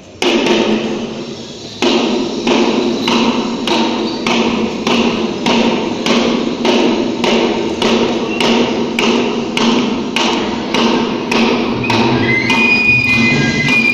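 Hand drum beaten in a steady rhythm of about two to three strokes a second, echoing in a large hall, after one heavy opening stroke that rings on. Near the end a high pipe or flute begins a melody over the drum.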